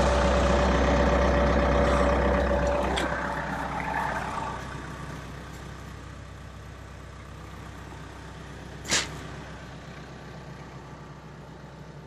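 Skid steer loader engine running loud and steady, then dying down over a couple of seconds to a low hum. A single sharp knock comes about nine seconds in.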